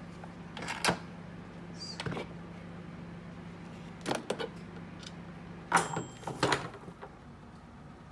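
Lid of a Shop Japan Cooking Pro electric pressure cooker being twisted open and lifted off once the pressure has released: a handful of plastic clunks and scrapes, the loudest about a second in and again around six seconds. A low steady hum runs underneath.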